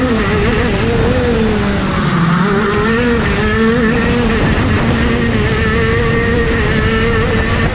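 Racing go-kart's two-stroke engine running hard, heard from on board. Its pitch sags around two seconds in, then climbs back and holds steady and high.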